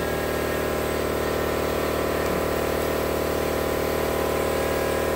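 A small engine running steadily at a constant speed, with an even multi-toned hum and no change in pitch.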